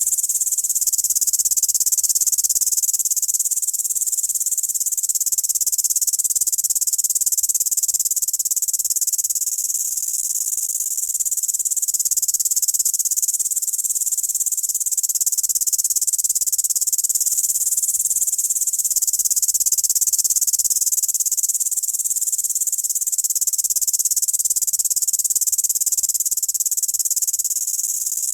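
Grasshopper stridulating: a continuous, high-pitched insect buzz that swells and eases slowly in loudness.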